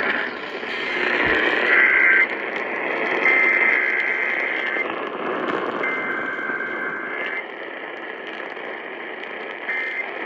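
Emergency Alert System SAME header data bursts received over AM radio: three harsh two-tone digital bursts, each a second or more long with short gaps between, over a heavy hiss of static. A brief further burst comes near the end.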